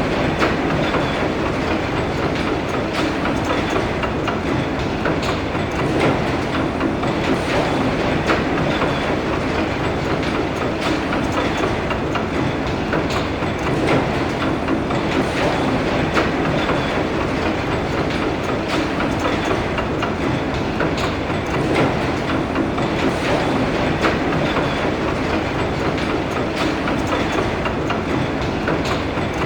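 Star Wars AT-AT walker sound effect: a steady, heavy mechanical rumble with a low hum and a repeating metallic clatter.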